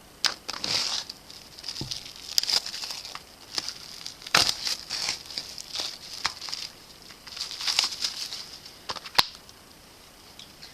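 Album packaging being unwrapped and handled: irregular plastic crinkling and tearing, with sharp clicks and taps, the loudest one near the end.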